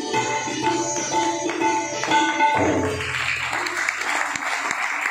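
Sitar and tabla playing the last phrase of a Hindustani classical piece, ending on a final stroke about two and a half seconds in whose low drum ring fades over the next two seconds. Audience applause starts right after the final stroke and carries on.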